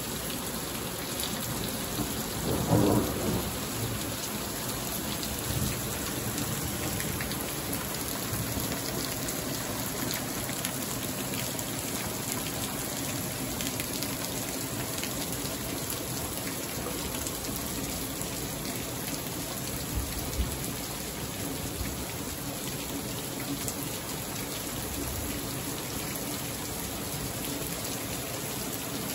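Heavy thunderstorm rain pouring steadily, with thunder; a louder rumble comes about two to three seconds in.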